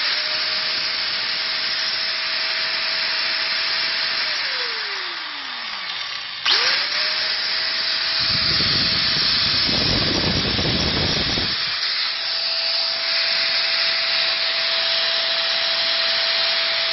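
Bosch GWS 7-115 750 W angle grinder running with a steady whine. About four seconds in it is switched off and winds down, falling in pitch; about six and a half seconds in it is switched on again, spins up quickly and runs on. A low rumble joins for about four seconds midway.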